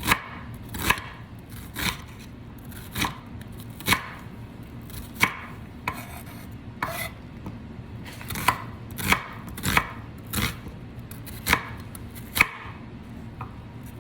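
Knife chopping on a cutting board: a dozen or so separate, unhurried cuts, about one a second.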